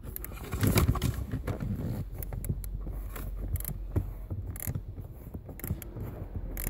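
Irregular small clicks, taps and scrapes of a 7 mm socket being worked onto and turning small screws by hand, with hands brushing the plastic footwell trim.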